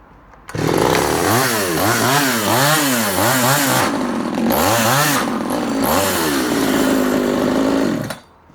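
Efco 134 top-handle chainsaw's small two-stroke engine starting about half a second in. It revs up and down repeatedly, then runs steadily, and cuts out suddenly near the end.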